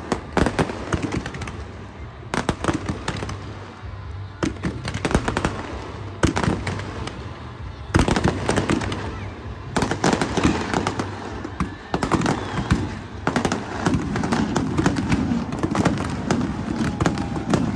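Fireworks going off: many sharp bangs and crackles at irregular intervals, coming thick and fast throughout.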